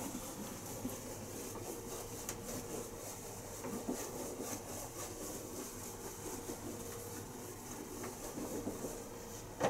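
Whiteboard eraser rubbing marker ink off a whiteboard in repeated wiping strokes, with a faint steady hum underneath.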